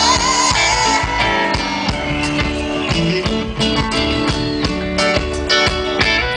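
Live reggae band playing an instrumental passage: guitar to the fore over bass and drums, with a steady beat.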